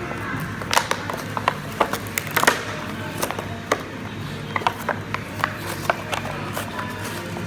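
Background music under irregular sharp crackles and clicks of the calculator's packaging being handled and torn open by hand.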